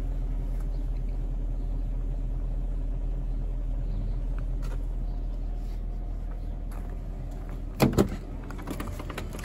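BMW 740i E38's 4.4-litre V8 idling steadily while warming up after a cold start. About eight seconds in there are two sharp knocks in quick succession.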